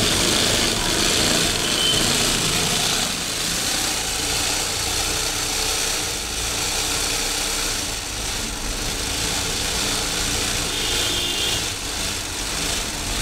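Motorised sewing machine running steadily, stitching a cloth binding onto the edge of a woven grass mat.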